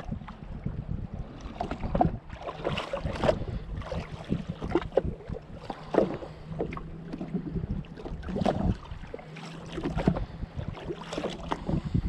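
Small waves lapping and splashing irregularly against the hull of a drifting jet ski, with wind rumbling on the microphone.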